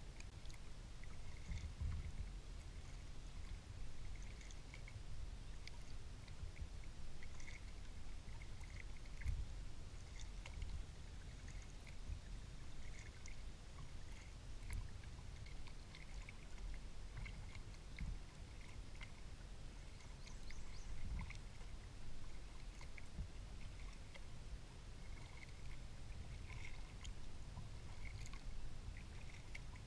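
Kayak paddle strokes dipping and dripping in calm water, over a steady low rumble.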